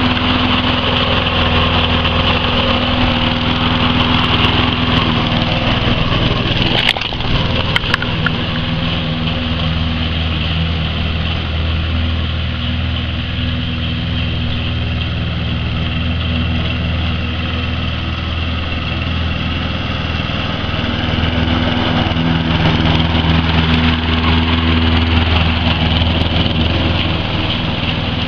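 Petrol walk-behind lawn mower engine running steadily with its throttle held down, its note shifting slightly as it goes. A couple of brief knocks sound about seven to eight seconds in.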